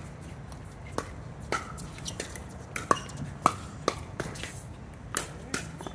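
Pickleball paddles hitting a plastic pickleball in a fast doubles rally: about ten sharp pops, roughly two a second, some with a short hollow ring.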